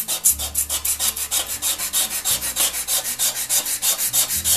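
Sandpaper rubbed quickly back and forth by hand along a rusty steel Disston saw blade, an even rhythm of scratchy hiss strokes at about six a second, scouring rust off the blade.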